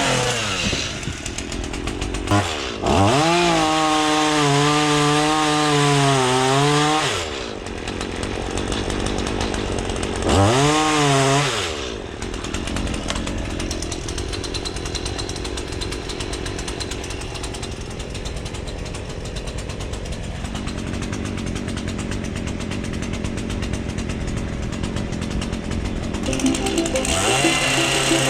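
Petrol Stihl chainsaw roughing out a log, revving up to full speed for a few seconds at a time and dropping back between cuts. It runs at a lower, steadier speed through a long middle stretch, then picks up again near the end.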